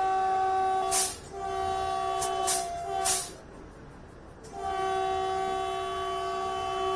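Vande Bharat train's horn sounding, heard from the driver's cab: a steady, multi-toned blast of about three seconds, a short break, then a second blast starting about four and a half seconds in. Several short, sharp bursts of noise cut across the first blast.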